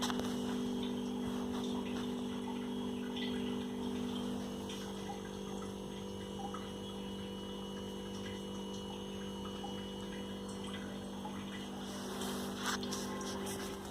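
Steady hum of a running electric motor or pump, with part of its tone dropping out about a third of the way in and coming back near the end. Faint scattered ticks, and a few louder clicks near the end.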